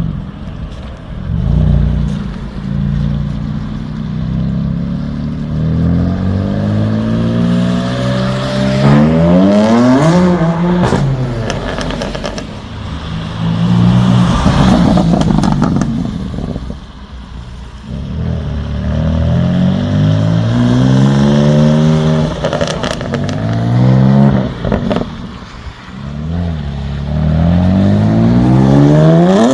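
BMW M4 Competition (F82) twin-turbo inline-six revving up hard several times over, its pitch climbing in repeated sweeps. Sharp exhaust pops and crackles come in bunches, around a third of the way in and again late on.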